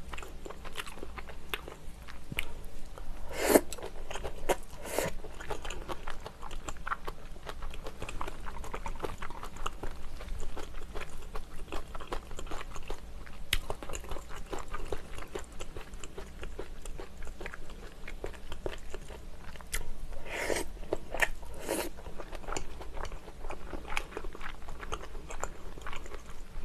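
Close-miked eating sounds: a person chewing braised kimchi, pork and soft tofu, with a steady run of small wet mouth clicks and a few louder bites and smacks scattered through.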